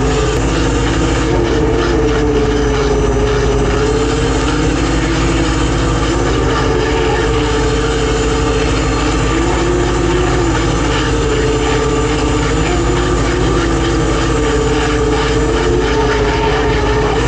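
Purse seine fishing boat's engine running steadily, with a whine that wavers up and down in pitch.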